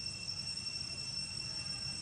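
Steady high-pitched insect drone, one unbroken trill holding the same pitch throughout, over a faint low rumble.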